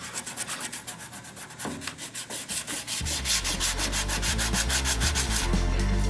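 Sanding on the metal gas tank of a 1941 Nash, a fast, even run of rasping strokes. About halfway through, background music with a heavy bass comes in under it.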